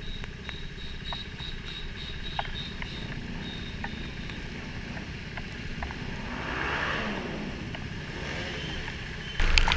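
KTM 390 Duke's single-cylinder engine idling while stopped in the rain, with raindrops ticking on the helmet camera. Passing traffic swells and fades about seven seconds in, and near the end the sound turns suddenly louder as the bike moves off.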